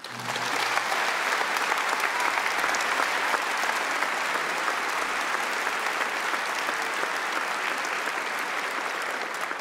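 Audience applauding: a steady, dense clapping that swells up just as a thank-you speech ends and holds evenly throughout.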